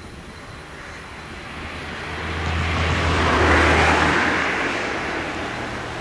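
A motor vehicle passing by: its noise swells to a peak about three and a half seconds in and then fades, over a low engine hum.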